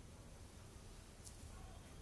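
Near silence: room tone with a low hum, and one faint short click a little past halfway.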